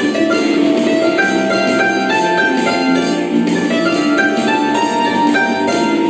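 Tsymbaly (hammered dulcimer) playing a quick melody: a steady stream of hammer-struck notes that ring on over each other.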